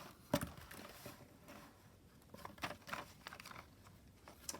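Stationery items and paper packaging being handled: rustling with a series of light knocks and clicks, the sharpest about half a second in and another cluster near the middle.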